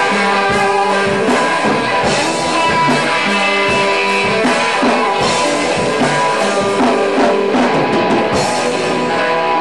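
Rock band playing live: electric guitars and a drum kit, loud and steady.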